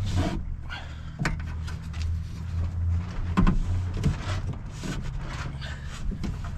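Scattered clicks and light knocks of metal parts and tools as a power window motor and its mount are fitted and bolted into a car door, over a steady low hum.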